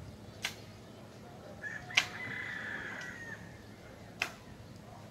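A rooster crowing once, a single held call through the middle, over sharp knocks every second or two; the loudest knock comes about two seconds in, just as the crow begins.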